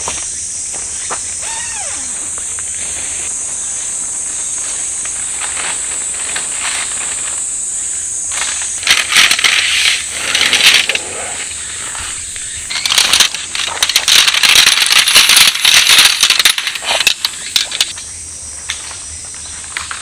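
Steady high-pitched insect drone with two loud stretches of rustling and crackling over it: a short one near the middle and a longer one of several seconds after it.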